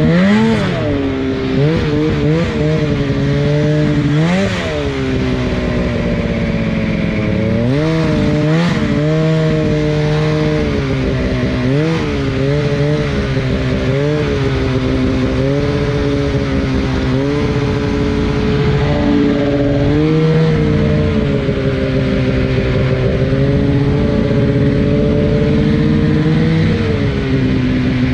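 Ski-Doo snowmobile engine running under throttle through deep snow, heard close up from the sled. The revs rise and fall in quick throttle surges during the first half, then hold fairly steady while cruising.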